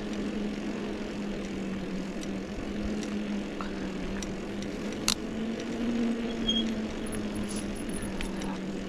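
Bicycle coasting downhill: a steady hum over the rushing noise of the ride, with a sharp tick about five seconds in.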